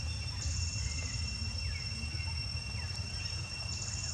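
Outdoor insect chorus: a steady high-pitched drone with two short cricket trills, one about half a second in and one near the end, over a low rumble.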